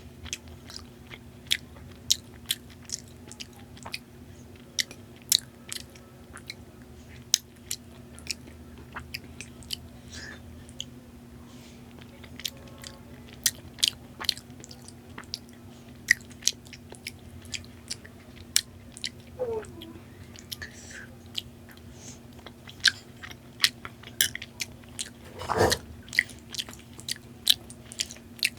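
Close-miked eating of Indian sweets: chewing with many sharp, wet mouth clicks and smacks, a few every second, over a steady low hum. A louder mouth sound comes about 26 seconds in.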